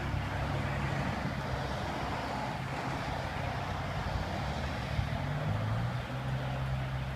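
Cars driving past on wet asphalt: a low engine hum over a steady hiss of tyres on the wet surface.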